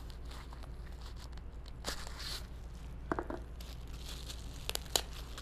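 Cardboard battery packaging being opened and handled by hand: soft rustling about two seconds in, a short cluster of taps about three seconds in, and a few sharp clicks near the end, the loudest about five seconds in.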